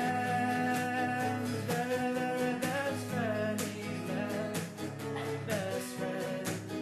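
Background music: a song with guitar and a steady beat, with a singing voice.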